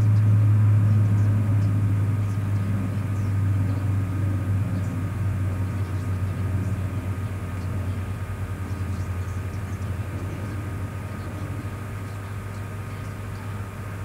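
Steady low rumble that slowly fades away.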